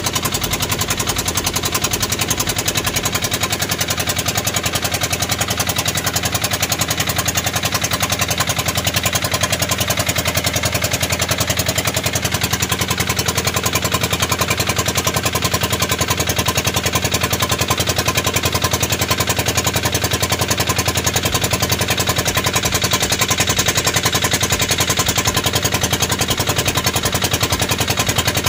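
Engine of a motorized outrigger boat (bangka) running steadily under way, a fast, even stream of exhaust pops; rather noisy.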